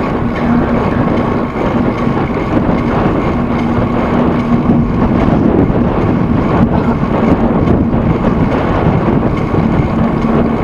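A vehicle's engine running steadily, a constant droning hum over a loud rush of wind noise.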